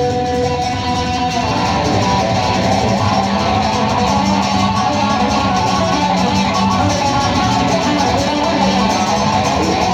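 Live band playing an instrumental passage, with guitars strumming and plucking.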